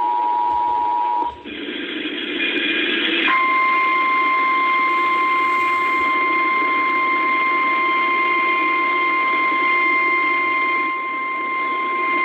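Emergency Alert System tones heard over AM radio. The two-tone attention signal stops about a second in, there is a brief noisy gap, and then a single higher steady alert tone holds until the warning is read. The tones announce a National Weather Service flash flood warning.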